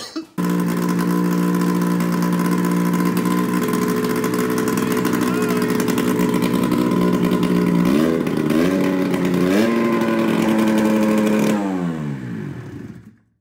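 Bombardier 583 two-stroke twin snowmobile engine with a freshly rebuilt top end, starting suddenly and running steadily. It rises in pitch in a few steps about eight seconds in, then is shut off and winds down near the end.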